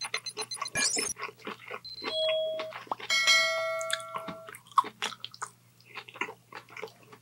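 Close-miked eating sounds: chewing and a fork clicking in the takeout food. Over them a subscribe-button sound effect plays: a short tone about two seconds in, then a bell chime of several tones that rings for over a second.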